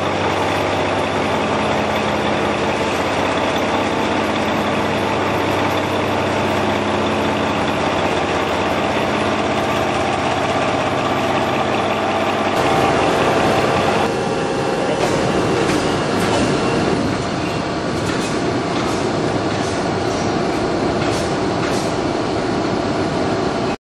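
KOTEC KTB-1255NL H-beam scallop bevelling machine running, its milling head cutting the steel beam with a steady mechanical drone and low hum. About halfway through the sound turns harsher and noisier, and several sharp metallic clanks follow.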